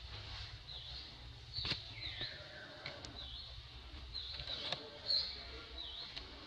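Birds chirping: short, sharp high chirps that dip and rise, about one a second, with one longer falling call about two seconds in, over a faint low rumble.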